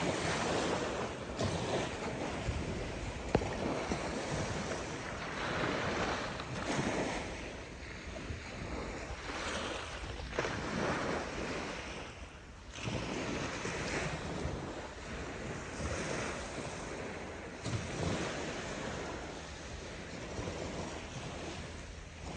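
Small waves lapping on a sandy shore with wind rushing over the microphone, swelling and easing by turns. A single sharp tap about three seconds in.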